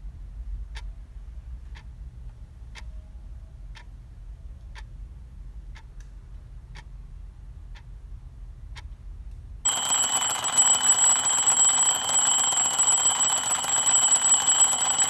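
A clock ticking once a second over a low hum. About ten seconds in, an alarm clock starts ringing loudly and steadily.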